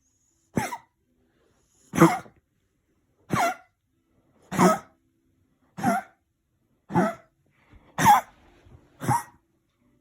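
A dog coughing in an attack of kennel cough: eight short, hacking coughs, about one a second, evenly spaced.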